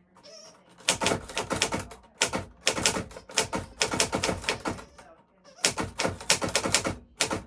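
A 1940s typewriter being typed on: quick runs of key strikes clacking against the platen, broken by two short pauses.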